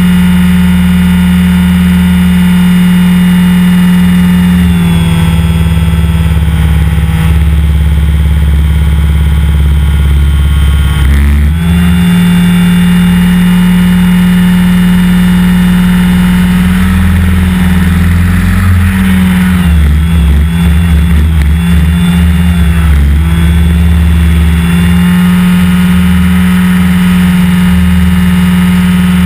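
Align T-REX 550 electric RC helicopter, heard close up on board: a loud steady whine of the motor, gears and rotor over a strong hum. The pitch sags and wavers briefly about 5 and 11 seconds in, and again and again between about 18 and 24 seconds in, as the rotor is loaded in 3D manoeuvres.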